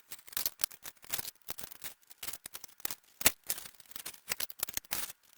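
Quick, irregular metallic clicks and ticks of stainless wheel spokes being slipped into a hub flange and rim, sped up.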